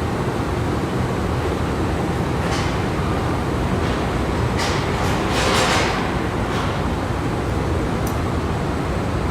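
Steady drone of factory machinery and ventilation in a repair plant, with a couple of short hissing bursts about halfway through.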